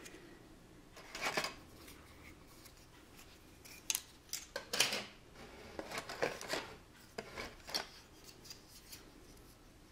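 Plastic model-kit parts and their packaging being handled: a few short, irregular rustles and clicks with quiet gaps between them.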